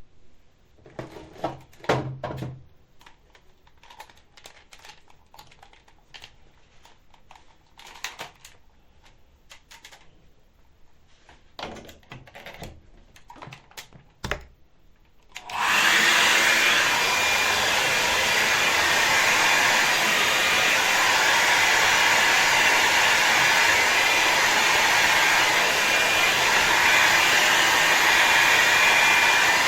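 Faint clicks and knocks of handling, then about halfway through a hair dryer switches on abruptly and runs with a loud, steady blowing rush and a faint thin whine.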